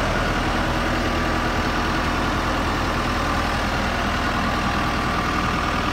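Skytrak telehandler's diesel engine idling steadily.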